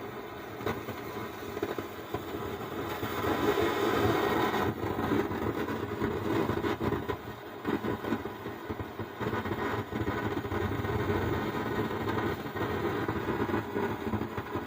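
Faulty Stranger PBT-501 amplifier putting out a loud, storm-like rushing noise through its loudspeaker instead of clean sound. The noise grows louder about three seconds in, then keeps surging. The repairer traces the fault to the amplifier's bass-treble tone board.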